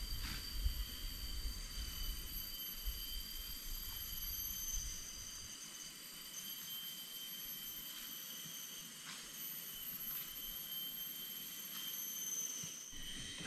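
Forest insects chirring steadily at several fixed high pitches, layered over each other without a break. A low rumble underlies the first few seconds and then drops away.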